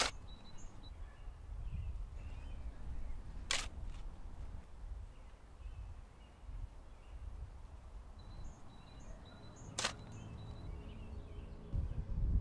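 Outdoor ambience of a low wind rumble and faint bird chirps, with sharp strikes of a shovel digging into the ground a few seconds apart.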